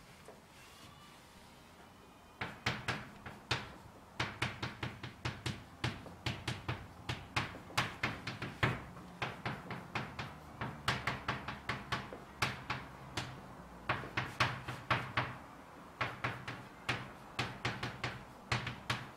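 Chalk writing on a blackboard: a rapid, irregular series of sharp taps and short scrapes as each character is stroked, coming in clusters with brief pauses, starting about two seconds in.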